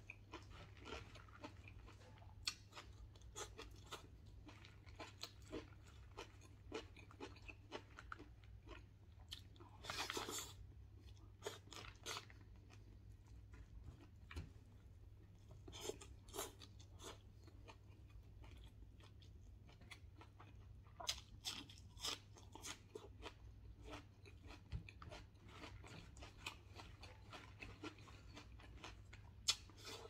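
Close-up mouth sounds of eating: chewing and crunching on cooked wild bird meat and raw leafy greens, a steady run of small irregular crunches with a longer, louder crackle about ten seconds in.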